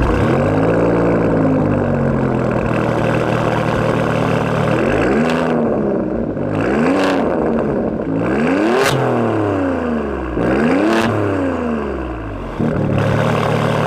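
Alfa Romeo Stelvio Quadrifoglio's twin-turbo V6 through an aftermarket exhaust: it flares up at the start and settles to a steady idle. From about five seconds in it is revved four times, each rev rising and falling, with sharp cracks at the top of the later revs.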